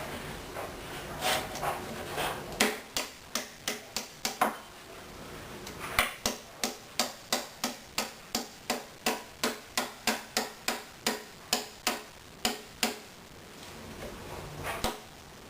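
Small hammer tapping sharply and evenly, about three strikes a second: a short run of about seven strikes, then, after a pause, a longer run of about twenty, while the glued plywood back of an archtop guitar is worked loose from its sides.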